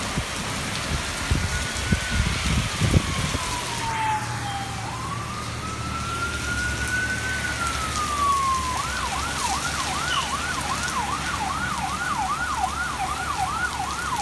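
An emergency vehicle siren sounding a slow wail that rises and falls twice, then switching, about two-thirds of the way through, to a fast yelp of about three sweeps a second. Under it runs the steady hiss of heavy rain, with a few low thumps in the first three seconds.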